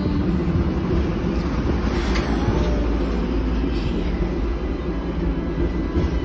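Tram car in motion, heard from inside: a steady low rumble and rattle, with a couple of sharper knocks about two and six seconds in.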